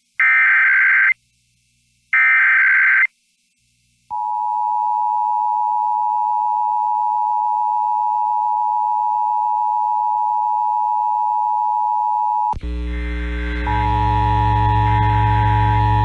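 Emergency Alert System test: two one-second bursts of the screeching digital SAME header, then the steady two-tone EAS attention signal (853 and 960 Hz) held for about eight seconds. In the last few seconds it gives way to a louder, harsher buzzing tone with heavy bass.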